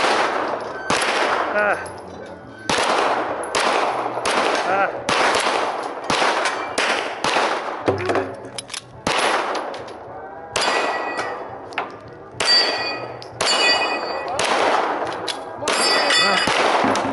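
Semi-automatic pistol fired in rapid strings at steel targets, the shots followed by the clang and ringing of struck steel plates. There are short breaks between strings, one of them about eight seconds in.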